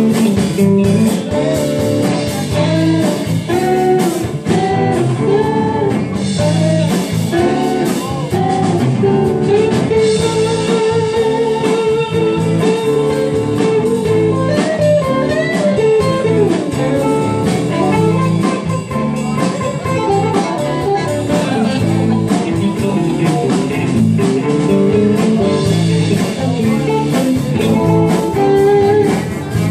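Live blues-rock band playing: electric guitars over bass and a drum kit, with long held guitar-like notes partway through, recorded on a phone close to the stage.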